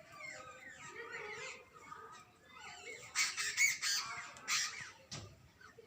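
Jungle babblers chattering, a run of overlapping calls, with louder, harsher calls about three seconds in and again a little later.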